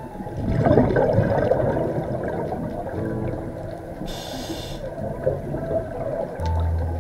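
Scuba diver breathing through a regulator: a long burst of exhaled bubbles gurgling and rumbling, then a short hiss of inhalation about four seconds in. A low steady hum comes in near the end.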